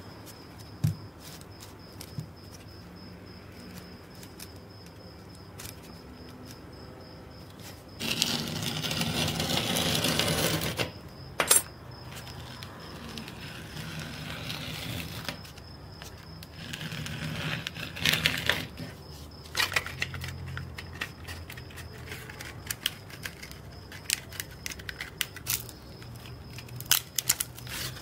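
Sheets of sandpaper being handled, creased and fitted onto a plastic hand sanding block: rustling and scraping of the paper, loudest for about three seconds starting eight seconds in, with scattered sharp clicks.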